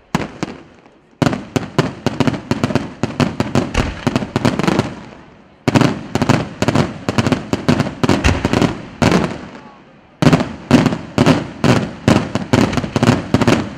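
Aerial fireworks shells bursting in three rapid volleys of loud bangs, several a second, each volley lasting about four seconds with short gaps between.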